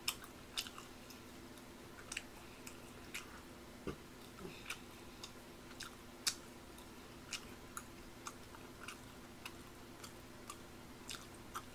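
Faint chewing close to the microphone: irregular small clicks and smacks of the mouth, about one every half second, over a low steady hum.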